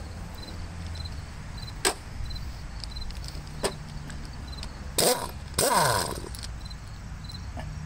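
Cordless impact wrench on a bolt of the tractor's plow mount: a few light clicks as the socket is fitted, a short burst of hammering about five seconds in, then a longer run that falls in pitch as it winds down. Crickets chirp steadily in the background.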